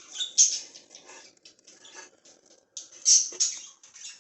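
Baby budgerigars chirping in short, high, squeaky bursts, loudest about half a second in and again about three seconds in.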